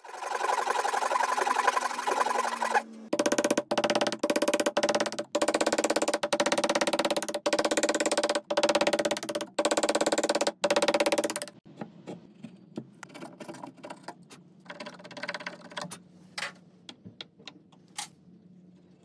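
Japanese hand saw cutting wood: a continuous run of sawing, then about ten separate strokes at roughly one a second that stop about eleven seconds in. Scattered light clicks and knocks follow.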